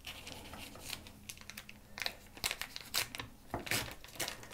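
Paper wrapper of a block of sheep's cheese (feta-style Schafskäse) crinkling as it is unfolded by hand: a string of irregular crackles.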